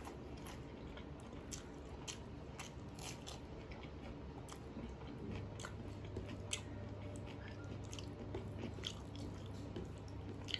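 Close-miked chewing of a mouthful of rice and mutter paneer curry, with scattered short wet mouth clicks. A steady low hum comes in about halfway.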